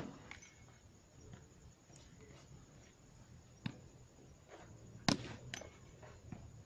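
A volleyball being struck by hands during a rally: a sharp smack right at the start, a lighter one a little past three and a half seconds, and another sharp one about five seconds in, with fainter knocks between.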